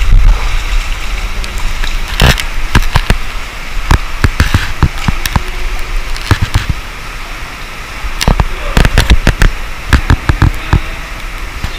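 Sharp knocks and scrapes at irregular intervals, coming thickest in the last few seconds, over a low rumble: people crawling through a rocky cave passage with the camera jostled by the movement.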